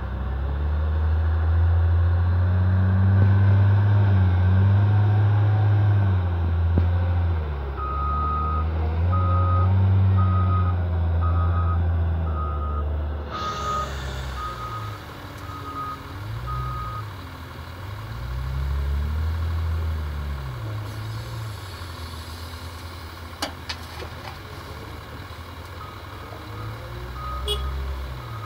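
Caterpillar 950H wheel loader's diesel engine revving up and easing back repeatedly as it digs and lifts, loudest in the first half. A backup alarm beeps a little faster than once a second for several seconds in the middle and again near the end, with a few sharp clanks about two-thirds of the way through.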